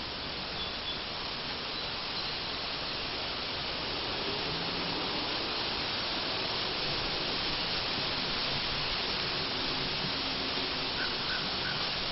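Steady even hiss of outdoor woodland ambience, with three faint short chirps near the end.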